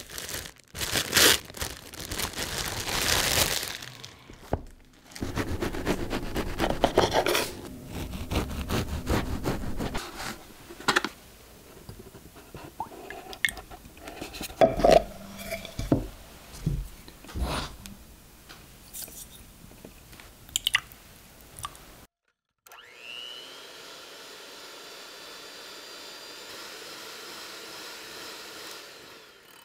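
Kitchen handling sounds: rustling, knocks and clicks as ingredients are handled and cream is poured into a glass bowl. About two-thirds of the way in, an electric hand mixer starts and runs steadily, whipping cream.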